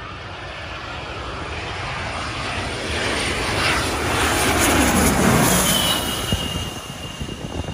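Twin-engine business jet on final approach passing low overhead: its turbofan engine noise builds steadily to a peak about five seconds in, drops in pitch as it goes by, then fades.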